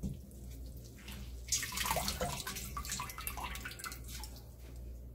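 Water splashing and dripping in a stainless steel bowl as hands lift soaked young butterbur shoots out of it, the water running off the leaves and stems. The splashing starts about a second and a half in and dies away after about four seconds.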